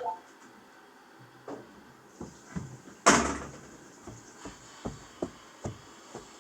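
A brief pitched blip, then a series of short knocks and clicks with one louder bang about three seconds in.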